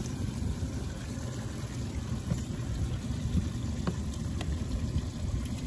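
Steady low rumble of wind on the microphone and water around a boat on open water, with a few faint clicks.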